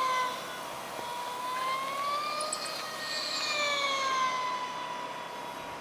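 Small model-aircraft engine of an RC pylon racer running at high revs in flight: a high, thin whine whose pitch slowly falls, rises and falls again.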